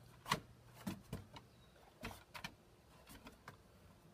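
A boxer dog moving about on a wooden deck: faint, scattered short taps and scuffs, about a dozen over four seconds, some in quick pairs.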